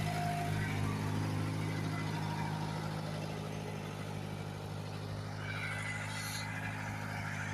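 1974 JCB 3 Mk3 backhoe's diesel engine running steadily at low throttle as the machine trundles slowly along. A brief higher-pitched sound comes about six seconds in.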